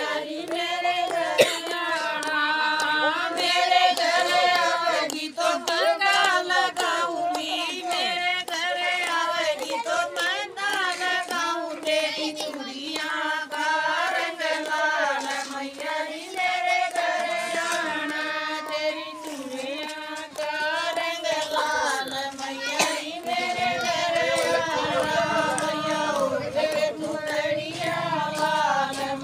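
A group of women singing a Hindu devotional song (bhajan) together, clapping along.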